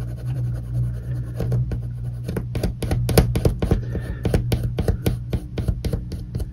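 Colored pencil scribbled back and forth over a wooden model part, a quick run of short scratchy strokes, several a second, starting about two seconds in and stopping shortly before the end: a second pass of colour to even out the surface. A steady low hum runs underneath.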